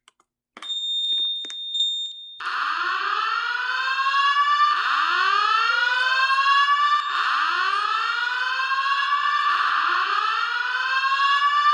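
A steady high-pitched beep with a few clicks starts about half a second in. Then a voice-evacuation fire alarm speaker sounds the whoop evacuation tone: four rising sweeps, each a little over two seconds long, following one another almost without a break. The system is in alarm.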